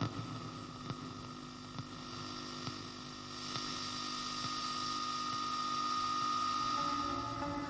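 A steady hum with a faint hiss that slowly swells about halfway through, broken by a few soft clicks.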